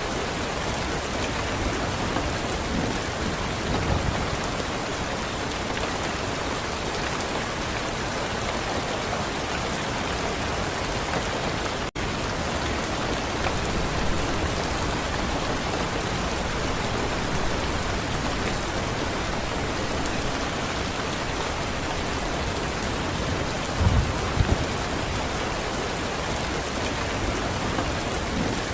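Steady, dense rain falling on a surface, with a few brief low rumbles about four seconds in and again near twenty-four seconds. The rain cuts out for an instant about twelve seconds in.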